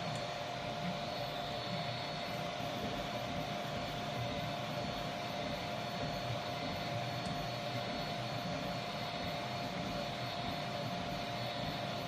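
Vivedino Troodon 300x300 3D printer running: a steady mechanical hum with a constant mid-pitched tone, and faint brief ticks now and then. These are the cracking and popping from the right side of the gantry, worse with printing speed, which the owner suspects come from bad bearings in the right front pulleys.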